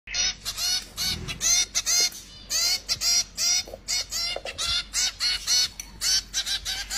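Zebra finch chicks begging for food during hand-feeding: short, high, repeated calls, about three a second, coming faster near the end.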